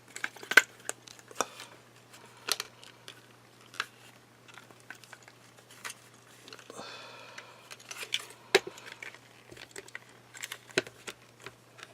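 Lock packaging being pried and worked at by hand: scattered sharp clicks and knocks, with a short stretch of crinkling about seven seconds in.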